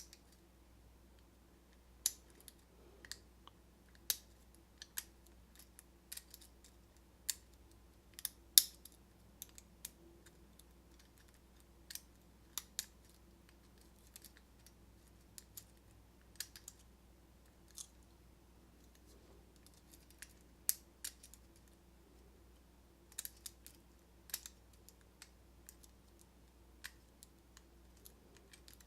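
Sharp, irregular metallic clicks, scattered with pauses between them, as lock picks and a tension wrench work the pins and plug of a cheap pin-tumbler lock cylinder during picking.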